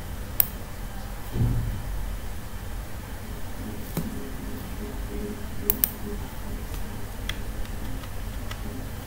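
A few scattered computer mouse clicks, six or so over several seconds, over a steady low hum, with a soft low thump about one and a half seconds in.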